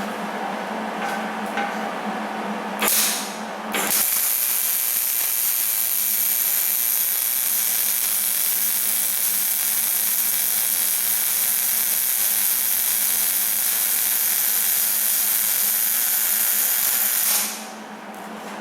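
Electric arc welding on a steel wheel rim: a short blip of arc about three seconds in, then one steady hiss of a continuous weld bead for about thirteen seconds that cuts off sharply near the end.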